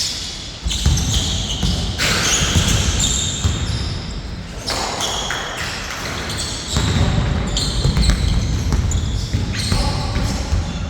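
Basketball game play: the ball bouncing on the court amid players' movement, with short high-pitched squeaks of shoes scattered throughout.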